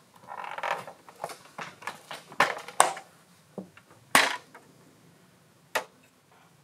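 Clicks and knocks of a 1/6-scale RocHobby Willys MB RC model's folding windshield frame being handled and folded down onto the hood: a brief rustle, a quick run of sharp clicks, a louder knock about four seconds in, and a single click near the end.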